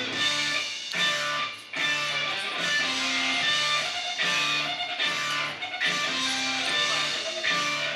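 Background music: guitar playing a steady, repeating pattern of notes.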